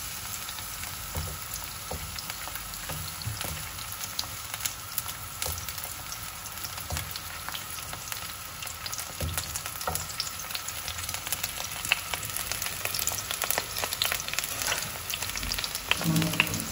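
Garlic cloves sizzling in extra virgin olive oil in a deep frying pan: a steady hiss with small crackles and pops that come more often in the second half.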